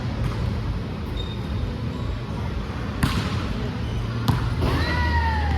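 A volleyball being struck twice during a rally: two sharp smacks about a second and a half apart, over a steady low hum. Near the end a high tone glides downward.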